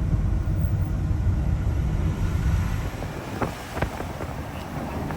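Camper van driving, heard from inside the cab as a steady low road and engine rumble. The rumble eases about three seconds in, and a few light clicks follow.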